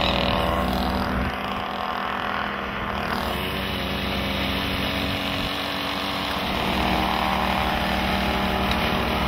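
Small two-stroke moped (Mofa) engines running steadily as the mopeds ride along.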